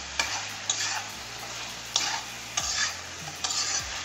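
A spatula scrapes and stirs chicken pieces in a kadai in a series of strokes about every half second to a second, over a steady sizzle of the chicken frying in oil.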